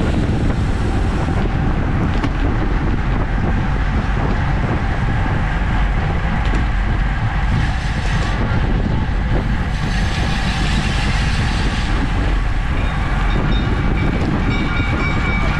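Steady, loud wind noise buffeting a bike-mounted camera's microphone on a road bike riding at about 25 mph. Near the end, a few faint steady tones join it.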